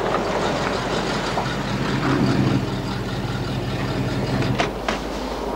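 A motor vehicle's engine running steadily with a low hum, which drops away about four and a half seconds in, leaving a few light clicks.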